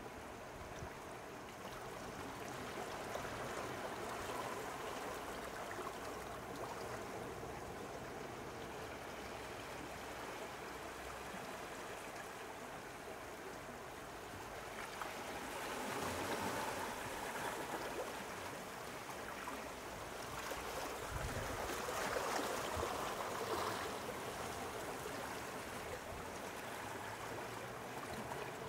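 Small sea waves lapping and washing at the shore, a steady wash that swells up twice.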